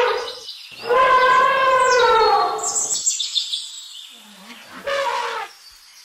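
Elephant trumpeting in several calls: a loud trumpet of about a second and a half that falls slightly in pitch, a shrill high squeal just after it, and a shorter, quieter call near the end.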